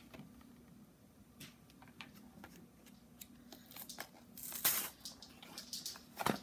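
Kidrobot blind-box packaging being handled and torn open by small hands: scattered crinkles and rustles, with louder rips about two-thirds of the way through and again near the end.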